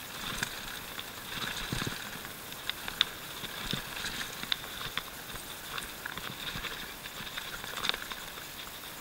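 Canyon Nerve mountain bike running fast down a dirt singletrack: a steady rush of tyre and trail noise, with frequent sharp clicks and knocks as the bike rattles over stones and roots.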